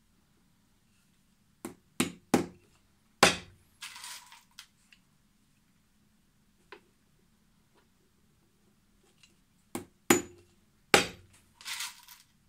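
Cobbler's hammer striking nails into a leather boot sole: four sharp blows, a pause, then three more, each group followed by a brief scraping rustle.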